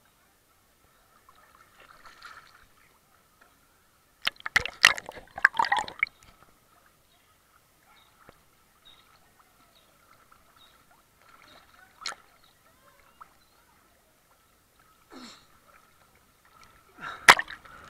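Choppy pool water sloshing and splashing against a camera held at the waterline, with loud bursts of splashing about four to six seconds in and again near the end.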